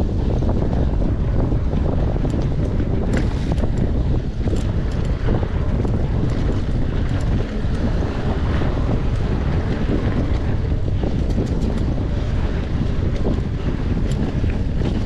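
Steady wind rumble on a riding mountain biker's camera microphone, with scattered sharp clicks.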